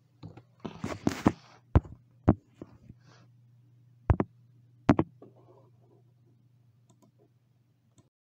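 Several sharp clicks and knocks: a quick cluster about a second in, then single ones near two seconds and between four and five seconds, over a steady low hum.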